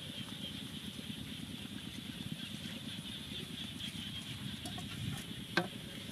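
Outdoor ambience beside a burning wood fire: a steady high hiss over a low rumble, with one short sharp pop about five and a half seconds in.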